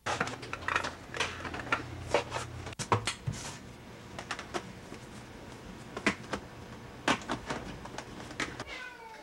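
Small metal cans of cat food clinking and knocking against one another and the shelf as they are stacked by hand: a string of sharp clicks, thick at first and sparser later.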